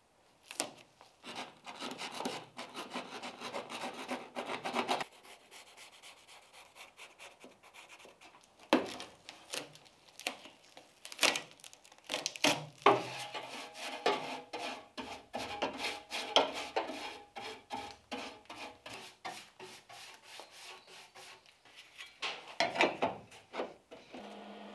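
Blue masking tape being pressed down, torn and peeled back on bare car-body sheet metal: crackling, rasping rubs and tears in short, irregular strokes.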